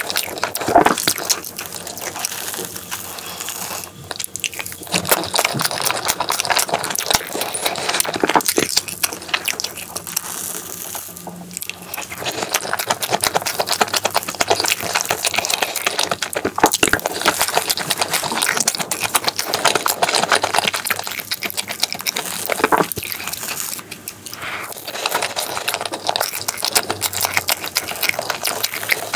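Close-miked chewing of chocolate crepe cake: soft, wet, sticky mouth sounds and smacks of cream and crepe layers, going on without pause.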